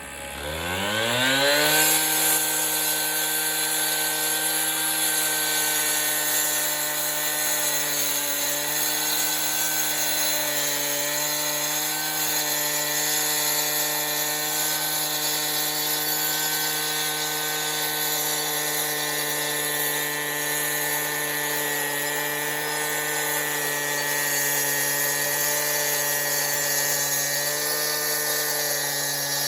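Two-stroke gas-powered concrete cut-off saw revving up over the first two seconds, then running steadily at high speed.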